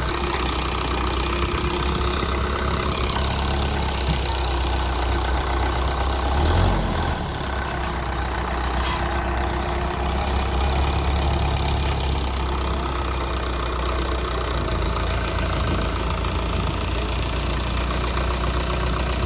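Indo Farm 3055 DI tractor's diesel engine running steadily under load in the field, with a brief louder swell about six and a half seconds in.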